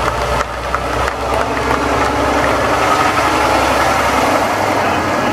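Diesel engine of a Western Star semi-trailer truck running as the truck drives past at close range. Its low rumble drops away a little after four seconds in.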